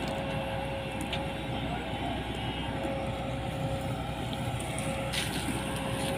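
Combine harvester's diesel engine running steadily as the machine drives across the field, a continuous rumble with a thin steady whine over it.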